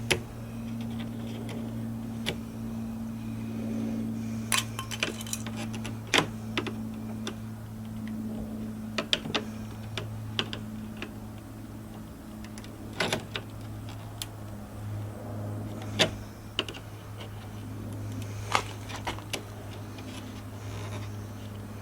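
Old adhesive emblem tape being pried and peeled off a car's body, giving scattered sharp clicks and crackles over a steady low hum.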